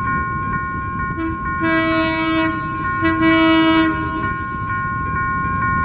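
Two blasts of a diesel locomotive's air horn on an EMD-GM J16CW/AC, the second starting about three seconds in: a horn greeting from the train crew. Under them run a low rumble and a steady high tone that pulses about twice a second.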